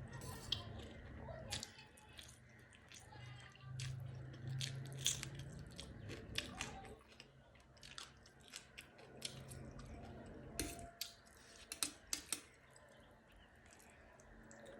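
A person chewing and biting crunchy food, with many short, sharp crunches scattered irregularly throughout.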